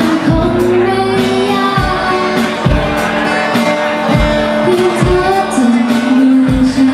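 A pop song with a sung melody over a steady drum beat and bass.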